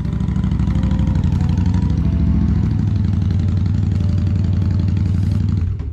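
2008 Honda Shadow 750's V-twin engine running steadily with a rapid, even, low pulse, dropping away near the end.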